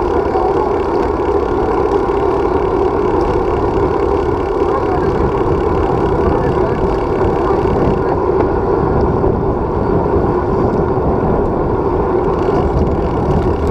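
Steady wind and road noise from riding a road bicycle, picked up by a handlebar-mounted GoPro: an even rushing with a low rumble that does not change.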